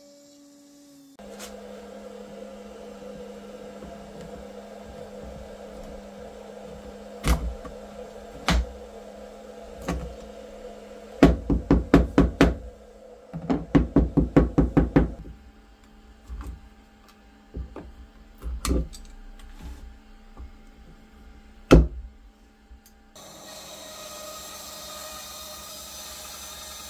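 Sharp wooden knocks as the routed oak board is knocked against the CNC router's bed: a few single knocks, then two quick runs of several knocks a second, then a few more. Under them runs a steady low hum, and in the last few seconds a bandsaw runs.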